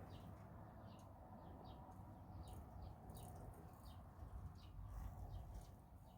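Small birds chirping faintly: many short, high, downward-sliding chirps at an irregular pace, over a low background rumble.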